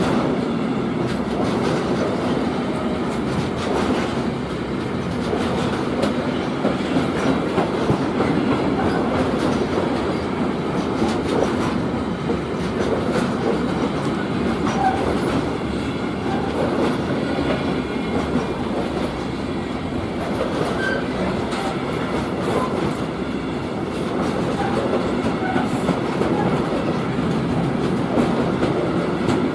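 Freight train wagons rolling past steadily, a continuous rumble of wheels on the rails with clicking over the joints and a few brief faint squeaks.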